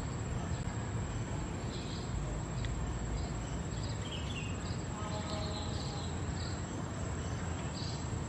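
Outdoor ambience: a steady high-pitched insect trill with scattered short chirps, over a low steady rumble.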